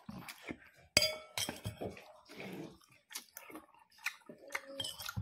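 A metal spoon clinking and scraping against plates, with one ringing strike about a second in, and chewing between the scoops.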